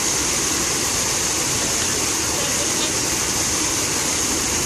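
Fountain water splashing and falling steadily, an even hiss that does not change.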